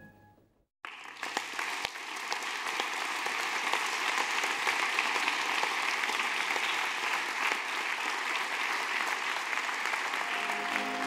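Applause from a small audience, breaking out about a second in as the ballet music dies away and running on steadily. Music starts again near the end.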